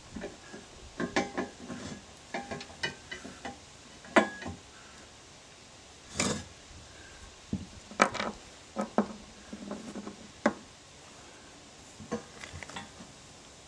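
Steel hardware clinking and knocking as bolts, washers and nuts are handled and fitted into the steel bar of a tractor tine attachment: a scattering of short, sharp clicks and knocks with quiet gaps between them.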